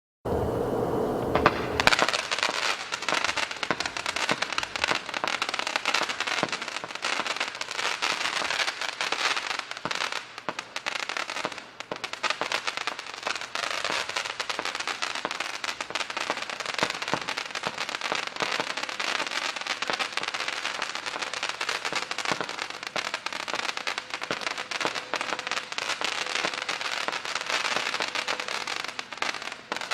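Fiesta BIG firework going off: a dense, continuous run of rapid pops and crackles that starts about two seconds in and keeps going without a break.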